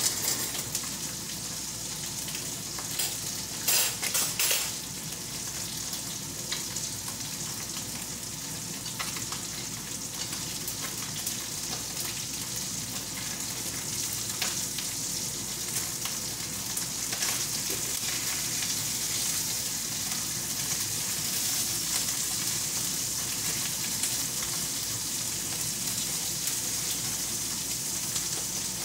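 Pieces of hairtail pan-frying in oil, a steady sizzle that grows a little louder past the middle. A short cluster of clicks and clatters comes about four seconds in as the fish is worked with chopsticks in the pan.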